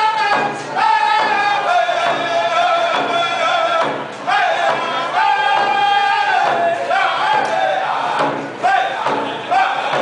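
Round dance song: a group of voices singing together in unison in repeated phrases, with drums beating time.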